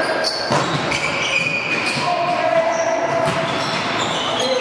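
Indoor volleyball rally: the ball being struck, sneakers squeaking on the hardwood court, and players calling out.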